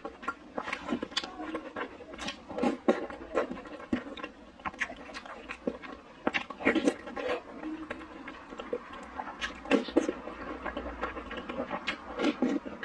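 Close-up eating sounds of a person slurping and chewing soup dumplings: an irregular run of wet mouth smacks and slurps.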